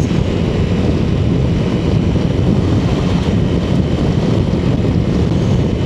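Motorcycle riding at speed on a gravel road: steady engine and tyre noise mixed with wind rushing over the microphone.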